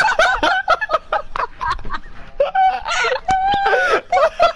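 Several young men laughing hard, in rapid high cackling bursts with a few words mixed in, and one longer drawn-out cry near the end.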